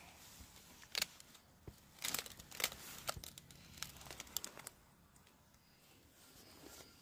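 Dry leaves and twigs crackling and rustling as they are stepped on and handled, a string of sharp crackles that stops about five seconds in.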